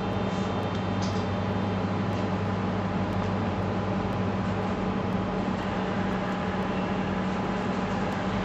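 PSR III Beaver Mini pipeline-inspection crawler's electric drive motors running as the robot drives and turns on a hard floor, a steady low hum.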